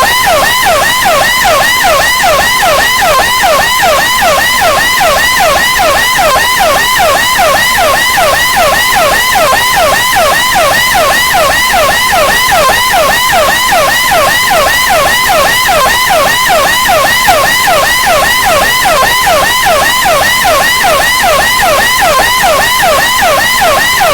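Police or ambulance siren sound effect in a fast wail, its pitch sweeping up and down over and over at a steady, rapid rate, loud and unbroken.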